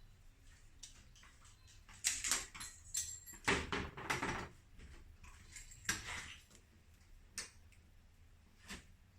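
Clinks, knocks and short scrapes from hand work on a refrigerator door and its hinge parts: a quick run of them from about two to four and a half seconds in, then single knocks near six, seven and a half and nine seconds.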